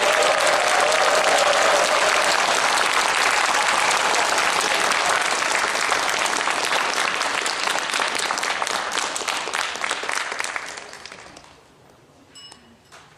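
Audience applauding, the clapping thinning out and dying away about eleven seconds in.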